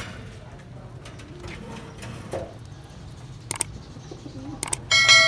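Caged pigeons cooing, with a few scattered clicks. About five seconds in, a sharp metallic clang that rings on.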